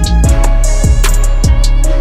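Background music with a steady drum beat: kick drum and cymbal hits over held bass and synth notes.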